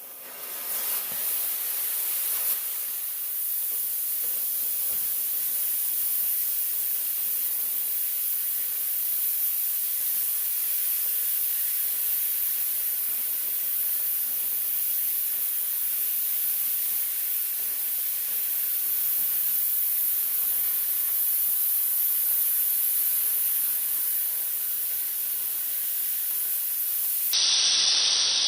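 Oxy-propane cutting torch cutting steel: a steady hiss of the gas jet that stops suddenly about a second before the end.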